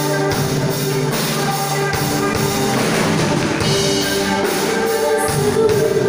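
Live rock band playing, with electric guitars, a bass guitar and a drum kit keeping a steady beat.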